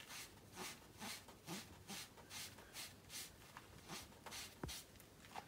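Damp melamine sponge rubbed back and forth against a textured plaster wall, a faint, quick scrubbing of about two to three strokes a second as it wipes off a pencil mark. A small click about four and a half seconds in.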